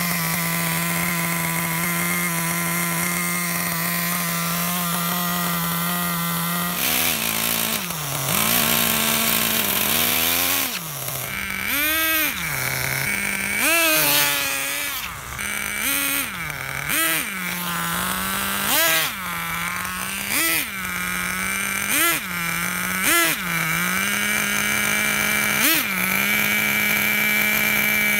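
Thunder Tiger Tomahawk MX nitro RC car's small glow-fuel engine idling steadily. About seven seconds in it starts being revved in short throttle blips, about a dozen of them, its pitch rising and falling every second or two as the car is driven.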